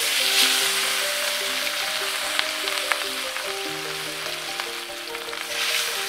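Rohu fish steaks sizzling in hot mustard oil in a kadai, with a few sharp spattering pops. The sizzle surges when the first steak goes in, and again near the end as a second steak is added.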